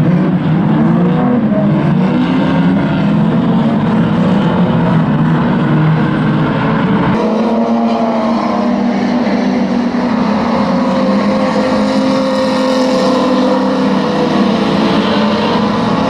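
Several pre-1980 classic banger racing cars running together, engines revving with pitch rising and falling in a loud, continuous mix. About seven seconds in, the deep low rumble drops away abruptly and the higher engine notes carry on.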